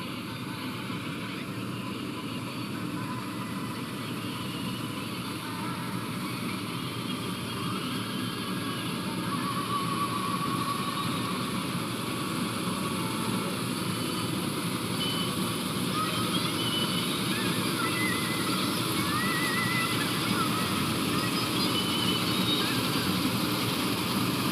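Diesel engine of heavy farm machinery running steadily under way, growing gradually louder as it comes closer.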